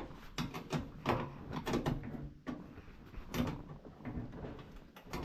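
Irregular knocks and clatters, as of equipment being handled and set in place.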